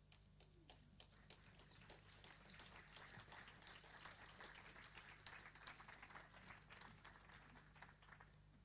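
Faint audience applause, many hands clapping, building over the first second or two and dying away near the end.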